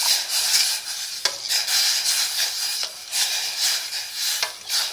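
A spoon stirring a pot of water, ginger, cloves and honey heating on full heat, over a steady hiss from the hot pot, with one sharp tap against the pot about a second in.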